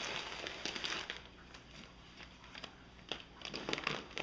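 Plastic shipping bags crinkling and rustling as an outer layer is pulled off a bagged fish, in uneven bursts, loudest in the first second and again near the end.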